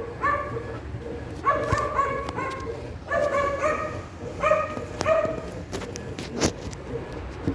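A dog barking: short, high-pitched barks in several quick runs, then a few sharp clicks or knocks near the end.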